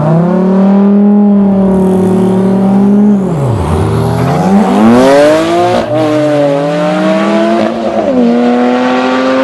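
Twin-turbo Porsche 911 (996) flat-six at full drag-race effort. The revs are held high for about three seconds, dip, then climb hard. Two sharp drops in pitch, about halfway through and near the end, are upshifts, and a faint tire squeal comes with the pull.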